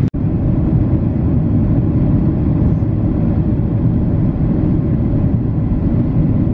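Steady low roar inside the cabin of a Boeing 737-800 on its approach, its CFM56-7B engines and the airflow heard from a window seat over the wing. The sound cuts out for an instant just after the start.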